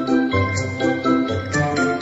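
Background music: a melody of short pitched notes changing every fraction of a second over a bass line, with an even beat.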